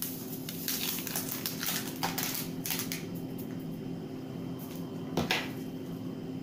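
Kitchen handling noises: a small paper packet of citric acid crinkling as pinches are sprinkled into a plastic bowl and the packet is put down on a saucer, then a single sharp tap about five seconds in. A steady low hum runs underneath.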